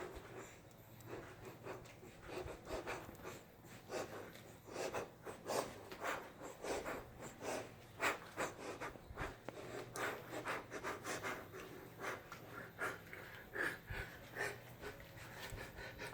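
A man breathing hard in short, irregular puffs, as from exercise, over a steady low hum.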